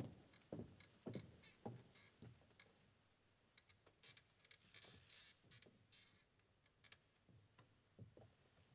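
Faint footsteps on the stage floor, about two steps a second, stopping about two and a half seconds in; then near silence with a few faint clicks and a soft rustle.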